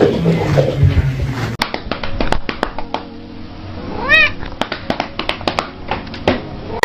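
A domestic cat meows once, a short call that rises and falls in pitch, about four seconds in, with scattered clicks and knocks around it.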